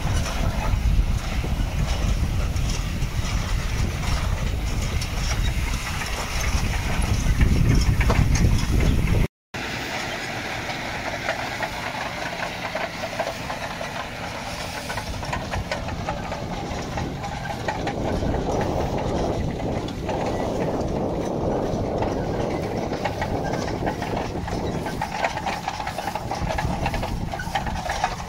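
John Deere 6155R tractor's six-cylinder engine running steadily as it pulls a disc slurry injector fed by a drag hose, with a heavy wind rumble on the microphone. About nine seconds in the sound cuts out briefly and comes back less deep, close beside the working injector.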